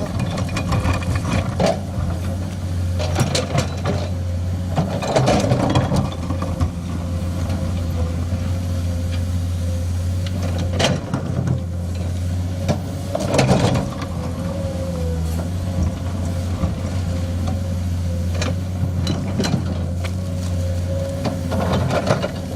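Komatsu hydraulic excavator's diesel engine running steadily, with a thin steady whine over it. Several sharp knocks of rock and bucket come at intervals, the strongest around a quarter, half and three fifths of the way through.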